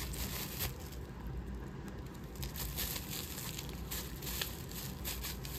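Packaging crinkling and rustling as an item is handled and unwrapped: a run of short, irregular crinkles.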